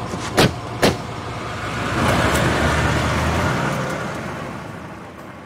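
Two car doors of a GAZ-31029 Volga slam shut in quick succession, then the car pulls away, its engine and tyres swelling and then fading as it drives off.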